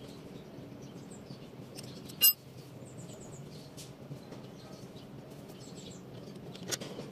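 One sharp metallic clink about two seconds in, from small metal brake caliper parts being handled, over a quiet background with short, high bird chirps now and then.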